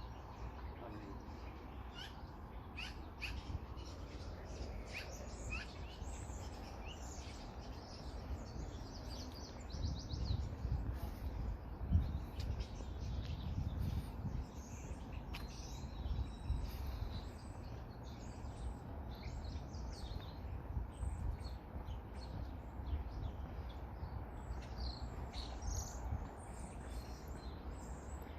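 Small birds chirping again and again in quick, short notes, over a low steady rumble that swells about halfway through.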